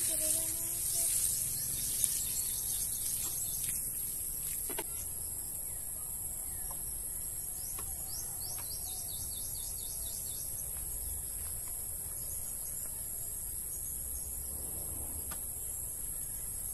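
Water sprinkling from a watering can onto a seedbed for the first few seconds, with one sharp knock about two seconds in. Under it, a steady high insect drone runs throughout, with scattered bird chirps.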